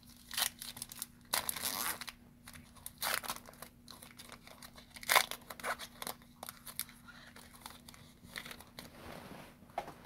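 Foil wrapper of a baseball card pack torn open and crinkled by hand: irregular crackles and rips, the loudest about five seconds in.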